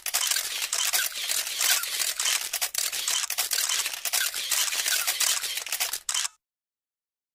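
Camera shutter sound effect: a fast run of many shutter clicks that cuts off suddenly about six seconds in.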